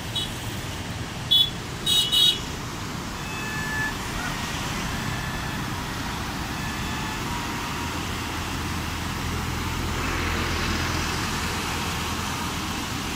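Short vehicle horn toots about a second and two seconds in, over a steady rushing noise of road traffic and of water released through the dam's gates pouring over the spillway and rocks.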